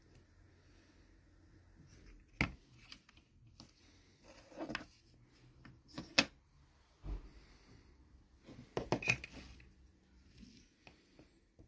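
Scattered light clicks and knocks of small hard objects being handled, about five louder ones spread out at irregular intervals over a faint low hum.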